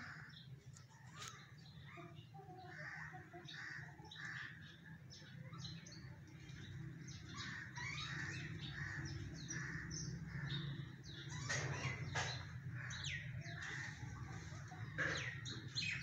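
A busy mix of bird calls: crows cawing among rapid chirps and tweets from smaller birds, growing busier in the second half, over a steady low hum.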